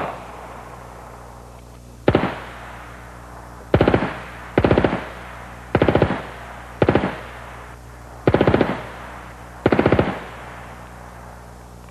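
Heckler & Koch MP5 9mm submachine gun fired in seven short full-auto bursts, each a quick string of shots lasting a fraction of a second. The bursts come about one to one and a half seconds apart, and each rings off in an echo.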